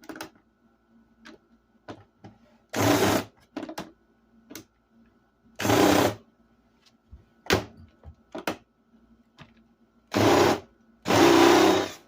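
Cordless screw gun running in four short bursts, backing screws out of a computer monitor's plastic case, with small clicks and taps of handling between the bursts.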